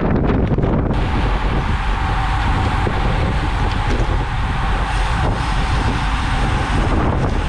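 Loud, steady wind noise buffeting a bicycle-mounted camera's microphone while riding at about 37 km/h. The sound changes abruptly about a second in.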